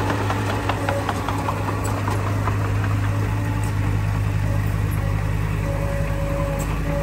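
Heavy diesel engine of earthmoving machinery running steadily at a low, even pitch, with scattered light clicks through the first few seconds.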